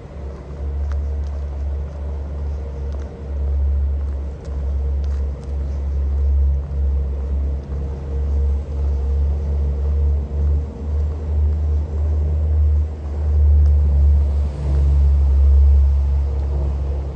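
Low rumble of wind buffeting a handheld camera's microphone, swelling and dropping in irregular gusts.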